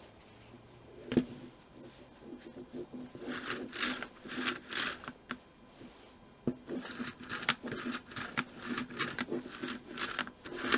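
Hands handling the plastic and metal parts of a string trimmer's recoil pull starter. There is a knock about a second in and another about six and a half seconds in, with bursts of light clicking and rattling between them and toward the end.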